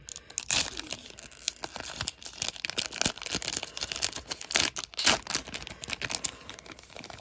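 A trading-card pack's wrapper being torn open and crinkled by hand, with irregular crackling and snapping, briefly louder about half a second in and again around five seconds in.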